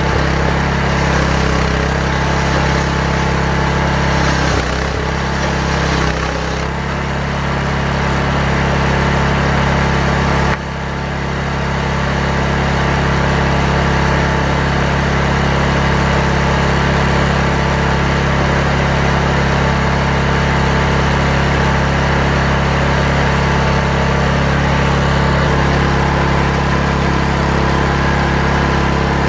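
Chainsaw running steadily under load, ripping a log lengthwise into timbers. The engine note holds even, with a sudden short dip about ten seconds in.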